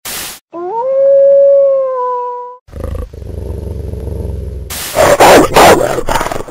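Intro sound effects: a short burst of TV static, then a single wolf howl that rises and then holds, followed by a low electrical hum and several loud, harsh bursts of noise near the end.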